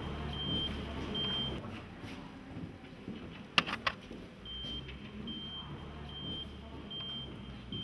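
Short high electronic beeps repeating a little faster than once a second, stopping for about three seconds in the middle, over a low steady hum. A quick run of three sharp clicks about three and a half seconds in is the loudest sound.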